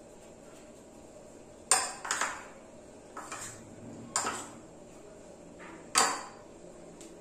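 Steel spoon clinking and scraping against a bowl as sattu stuffing is scooped out: about five sharp clinks, each ringing briefly.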